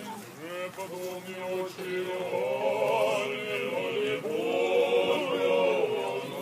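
Orthodox liturgical chant sung by male voices, the melody rising and falling, growing louder about two seconds in.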